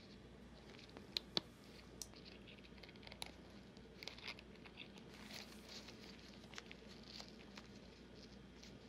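Faint scattered clicks and light rustling of gloved hands twisting thin 22 gauge wire around a hard, dried paper mache clay head, with a pair of pliers gripping the wire.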